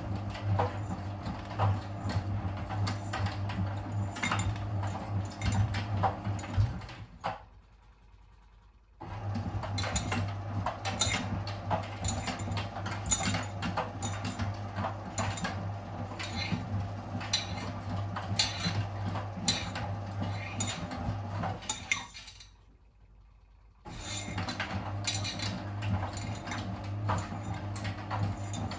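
Miele WS 5405 front-loading washing machine in its main wash: the drum motor hums steadily as the drum tumbles, and the load of a jacket and trainers clinks and knocks against the drum. The drum stops twice for about two seconds, about a quarter of the way in and about three-quarters of the way in, before turning again the other way.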